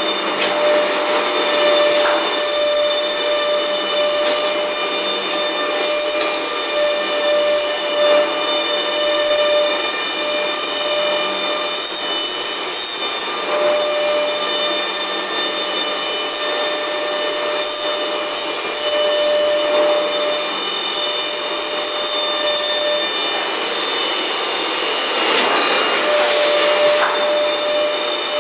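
A four-spindle PCB CNC drilling and routing machine is running. Its high-speed spindles give a steady high-pitched whine made of many tones over a rushing noise, and a lower hum cuts in and out every few seconds.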